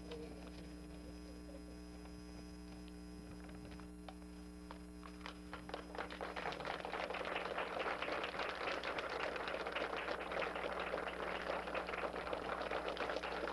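Faint paper crinkling, then from about six seconds in an audience breaks into steady applause.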